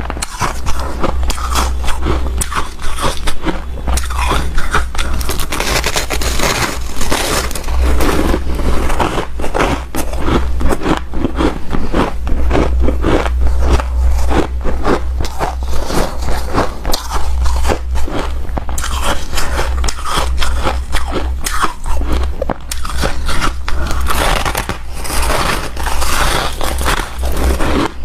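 Close-up crunching and chewing of hard ice powder: dense, irregular crunches from bites and chewing, with a soft squeak.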